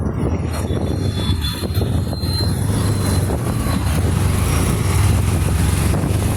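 Hero Xtreme 125R's single-cylinder engine running steadily as the motorcycle is ridden, a continuous low drone with road and wind noise over it.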